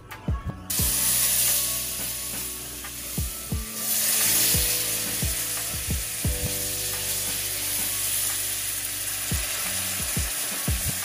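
Hot broth ladled into a cast-iron skillet of dark-brown roux, sizzling and bubbling as it hits the hot fat and flour. The sizzle starts suddenly about a second in and swells again around four seconds as more broth goes in and it is stirred.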